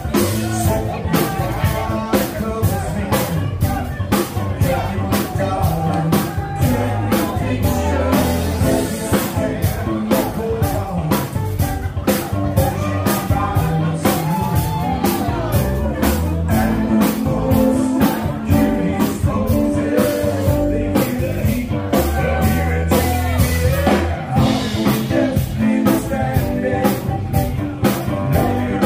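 Rock music with a steady drum beat and a singing voice.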